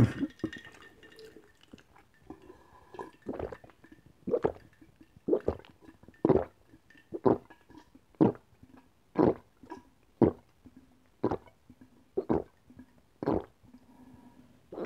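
A person gulping ice water from a glass jar, one swallow about every second in a steady run of about eleven gulps that starts about three seconds in.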